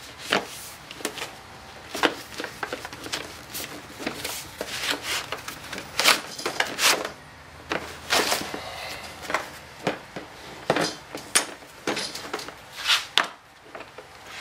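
Irregular sharp clicks and knocks of an AC manifold gauge set and its packaging being handled and unpacked.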